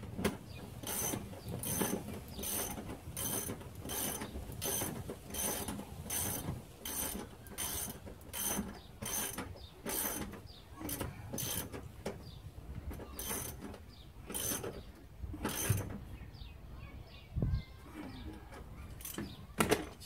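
Socket ratchet tightening a seat mounting bolt: a steady run of short ratcheting strokes, a little over one a second, that thins out and stops about sixteen seconds in, with one more stroke near the end.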